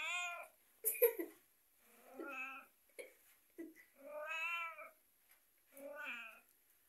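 Long-haired grey Persian cat giving four drawn-out, arching yowls about two seconds apart, with a few short sharp sounds about a second in. It is a cat in a bad mood, warning off a kitten that is pestering it.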